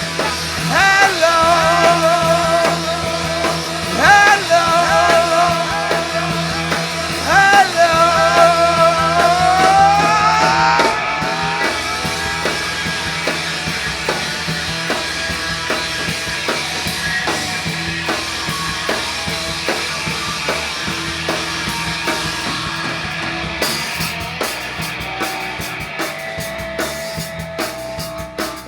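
Rock band playing an instrumental passage: a pitched lead line in three phrases with bending notes over a steady low drone, then a rising glide about ten seconds in. Sharp drum hits come in near the end.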